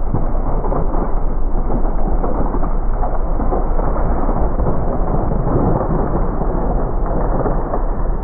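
Deep, continuous rumbling noise with a crackle through it, the slowed-down sound of a 12 gauge shotgun blast and flying debris under a slow-motion replay.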